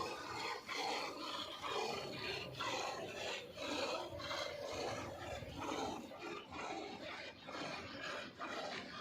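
Nili-Ravi buffalo being milked by hand: jets of milk squirting into a pail with a rasping hiss, about two squirts a second in a steady rhythm.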